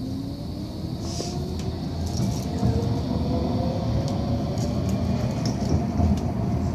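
Inside a tram pulling away from a stop: a steady low rumble from the wheels and car body, with the electric traction motor's whine rising slowly in pitch as the tram accelerates. Light clicks and rattles sound over the top.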